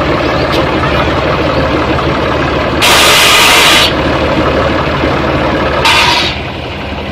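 Fiat 480 tractor's three-cylinder diesel engine running steadily under load, driving a tubewell water pump through a flat belt from its belt pulley. A loud hissing rush of about a second breaks in about three seconds in, and a shorter one near the end.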